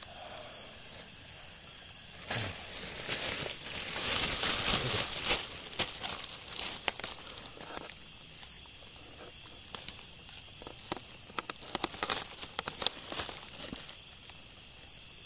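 Rustling, crinkling noise starting about two seconds in and lasting some three seconds, then scattered sharp crackles and clicks, over a steady high drone of night insects.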